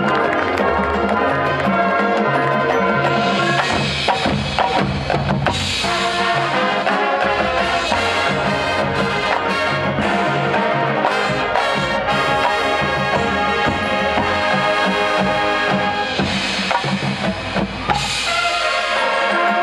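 High school marching band playing its field show: a full brass section of trumpets and trombones holding chords over marching percussion, with drum hits throughout.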